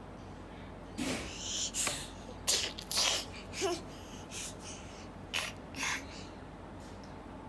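A small child making a run of short, breathy puffs and huffs, about nine in all between a second and six seconds in, mostly breath with little voice in it.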